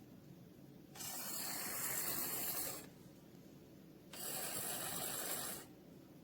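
Theo Klein 9532 toy Bosch hand blender running twice, each time for about two seconds: its electronic blender sound effect together with the turning blade mechanism, starting and stopping abruptly.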